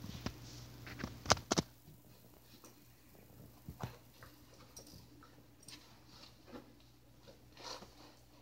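Dog chewing and gnawing on something, with scattered sharp clicks and crunches, the loudest two close together about a second in.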